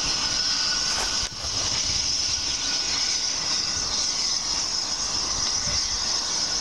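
Steam locomotive drawing into the station, its running heard under a steady high hiss.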